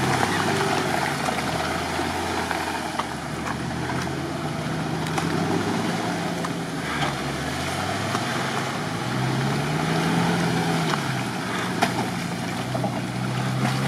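Off-road vehicle's engine running as it drives slowly over rough ground, its pitch rising and falling several times with the throttle, with a few scattered knocks and rattles.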